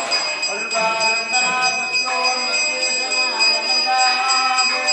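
Brass puja hand bell rung rapidly and without pause, giving a steady high ring, over music with a wavering melody.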